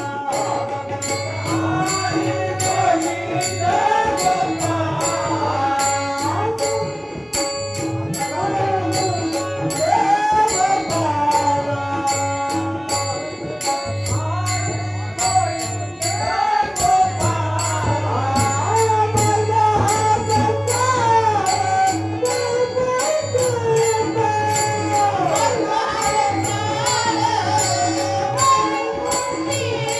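Marathi abhang devotional song: a singer's melismatic vocal line with tabla accompaniment and steady rhythmic jingling percussion, over a sustained drone note.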